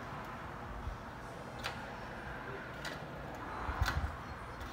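Pliers working at the small wire connections of an opened bug zapper, giving a few light metallic clicks, the loudest cluster about four seconds in, over steady workshop room noise.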